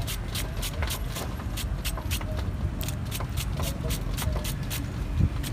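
Large knife rapidly slicing through lemongrass stalks, a fast even run of crisp cuts about four a second, over a low rumble of street traffic.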